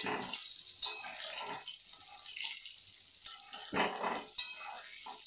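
Potatoes sizzling in hot oil in a steel kadai while a metal utensil stirs them, with sharp clicks and scrapes of metal on the steel pan. A couple of louder rough bursts come about four seconds in.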